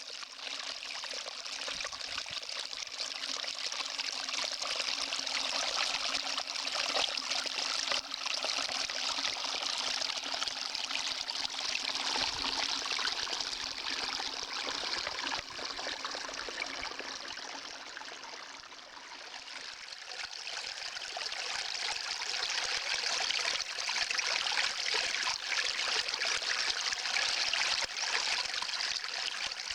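Small upland stream trickling and running steadily at the spring source of the River Lugg, where water wells up from the ground.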